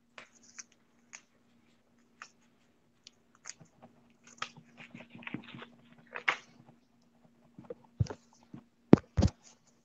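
Small clicks, taps and rustles of objects being handled on a tabletop, with a few sharp knocks near the end, over a faint steady hum.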